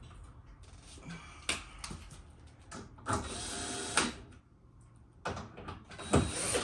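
Plastic bumper cover and headlight being pushed and shifted into their clips by hand: a few clicks, a scraping rub about three seconds in that lasts about a second, and a thump near the end.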